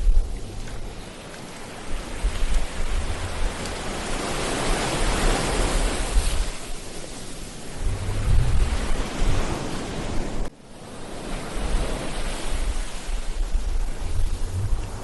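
Ocean surf on a beach: waves swelling and washing in as a steady rush, with uneven low buffeting of wind on the microphone. The sound drops out suddenly for a moment about ten and a half seconds in, then picks up again.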